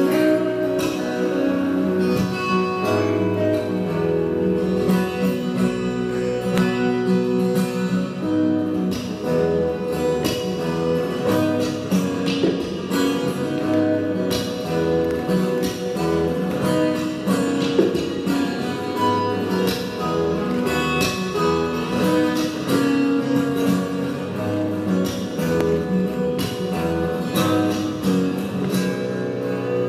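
Solo acoustic guitar played fingerstyle: a steady flow of plucked notes over held bass notes.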